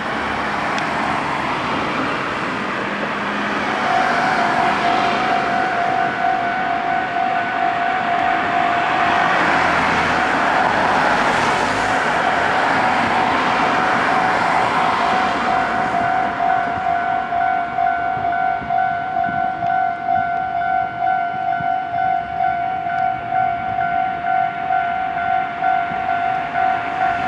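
Japanese railway level-crossing warning bell starting about four seconds in and ringing on in a steady, evenly repeating electronic ding. Under it, the rushing of a train running past fades out after about sixteen seconds.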